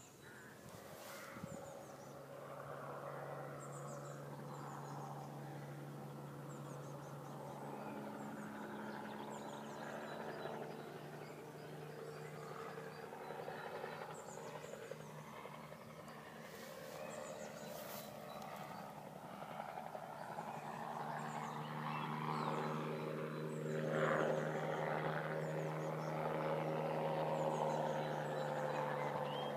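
VPM M16 gyroplane's engine and propeller running steadily in flight, the sound growing louder as the aircraft approaches, with a slight fall in pitch near the end. Birds chirp throughout.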